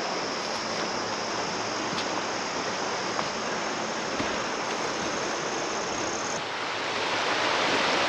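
Steady rushing of flowing river water, growing a little louder near the end.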